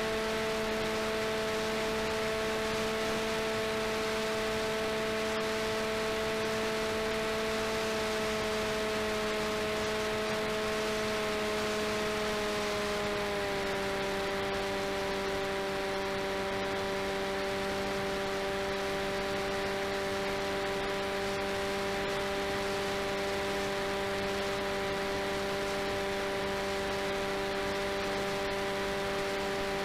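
RCTimer 5010 630KV brushless motor on a 4S LiPo turning the propeller of an FPV delta wing in flight: a steady whine with several overtones over a constant rush of airflow. The pitch drops a little about 13 seconds in, then holds.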